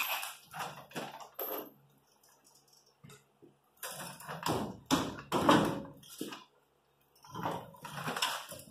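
A heavy truck wheel and its lug nuts being handled. A few light metal clicks come first, then a run of louder knocks and clunks as the wheel and tire are worked off the hub studs.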